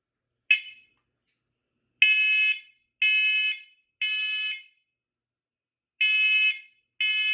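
A First Alert smoke alarm is sounding its test. A short chirp comes first, then loud, high-pitched beeps in groups of three, each about half a second long, a pause, and the next group beginning: the standard temporal-three alarm pattern.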